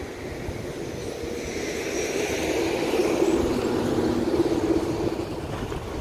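Engine hum of a passing vehicle, growing to its loudest about halfway through and then easing off, over a steady rushing noise.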